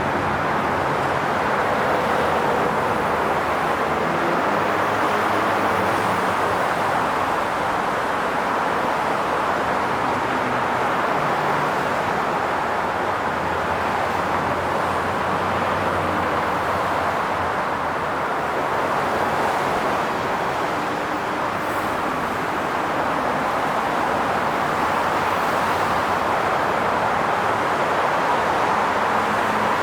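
Continuous highway traffic: a steady wash of tyre and engine noise from vehicles passing, swelling and easing gently as they go by.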